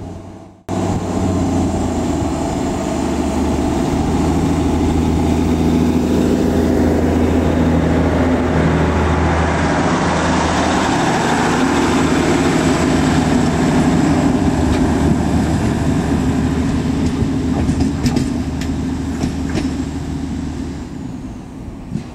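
SKPL SN82 diesel railcar passing close by and pulling away, its diesel engine running with a steady low drone that fades near the end. A few sharp clicks come a little before it fades.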